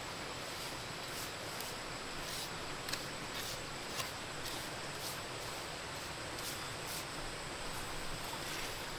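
Steady outdoor background hiss with faint, short, high-pitched ticks or chirps recurring irregularly, about one or two a second.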